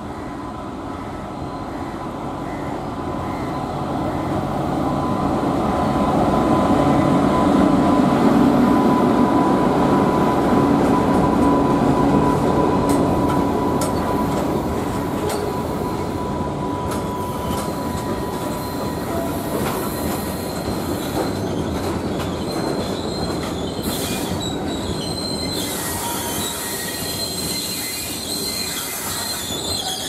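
A WAG9HC electric freight locomotive approaches and passes with a steady whine over its rumble, loudest about eight seconds in. Then its BCNA covered wagons roll by with wheel clicks, and in the last few seconds the wagon wheels squeal high on the rails.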